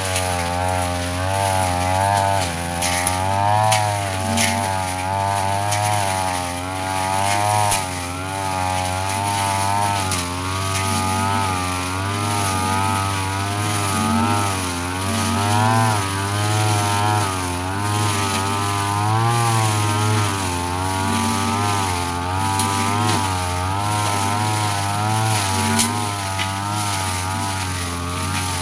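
Yasuka backpack brush cutter running steadily while cutting grass and weeds, its engine speed rising and falling every second or two as the cutting head meets the growth.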